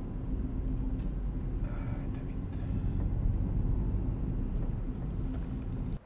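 Steady road and engine rumble inside a moving car's cabin, with a steady low hum.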